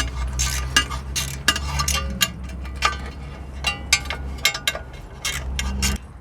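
Metal tools clicking and clinking against the suspension bolts and nuts as a socket wrench works a bolt loose, irregular sharp clicks over a low steady hum that stops about six seconds in.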